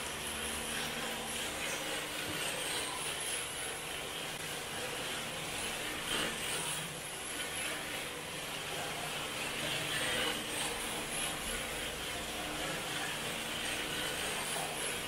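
Rear-wheel-drive MST RC drift car driving and sliding on a concrete floor: its electric motor runs while the tyres scrub across the concrete.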